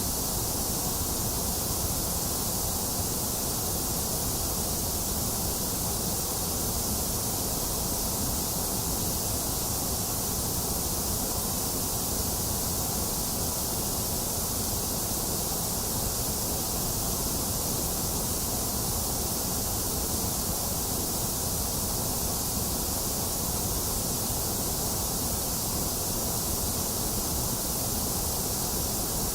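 Steady generated white noise: an even, unchanging hiss with no breaks or events.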